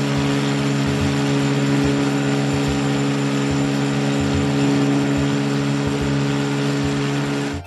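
A sailboat's motor running steadily, an even low drone that does not change in pitch.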